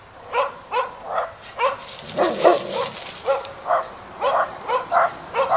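A dog barking repeatedly, short barks coming about two to three a second without a break.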